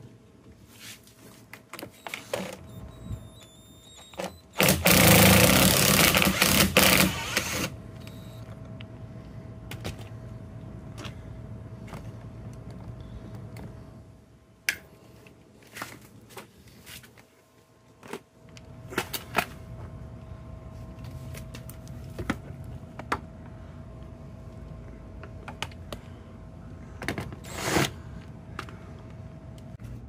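Hands working on a pickup truck's plastic interior door trim panel: scattered clicks and knocks, with a loud rough noise lasting about three seconds near the start.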